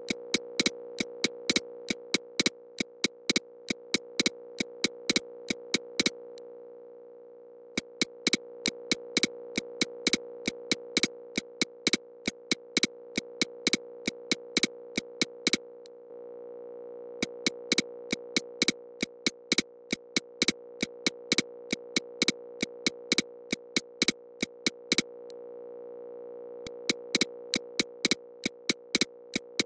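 Electronic EMDR bilateral-stimulation soundtrack: a steady synthesized drone centred near 500 Hz that slowly swells and fades, under runs of sharp, evenly spaced clicks about three a second. The clicks pause for a second or two about every nine seconds.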